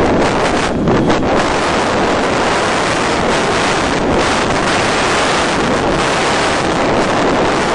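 Steady, loud wind rush over the onboard microphone of an FPV model airplane gliding with its motor drawing almost no current, so there is no motor sound, only airflow.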